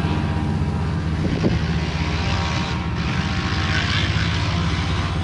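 Segale Suzuki racing motorcycle's engine idling steadily, with an even, rapid firing pulse.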